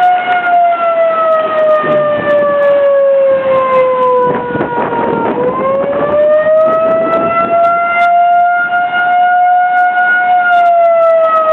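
Outdoor tornado warning siren sounding: one loud tone that slowly falls in pitch over about five seconds, climbs back up quickly, holds steady, and begins to fall again near the end.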